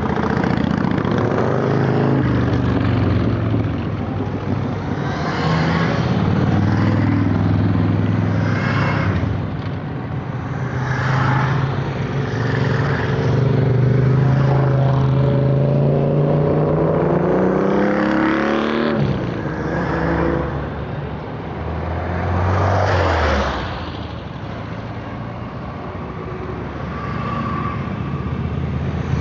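A procession of motorcycles, cruisers and sports bikes, riding past one after another, each engine swelling as it comes close and fading away. About two-thirds of the way through, one bike's note climbs and then drops sharply in pitch as it goes by, and a few seconds later another falls in pitch.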